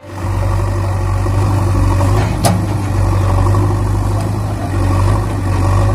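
Engine idling steadily with a deep even hum, and one sharp click about two and a half seconds in.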